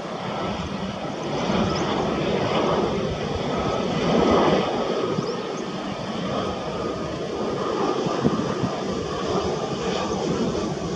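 Jet engines of an Airbus A320 airliner running close by, a steady rushing noise with a faint whine above it that swells slightly about four seconds in.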